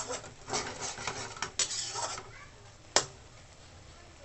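Metal spatula scraping and stirring through squid adobo in a steel wok, a few strokes in the first two seconds, then one sharp metal clack about three seconds in.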